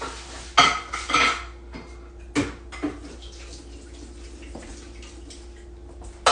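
Kitchenware clinking and knocking as items are handled and set down on a counter: a few sharp knocks in the first three seconds and a loud one at the end, over a steady faint hum.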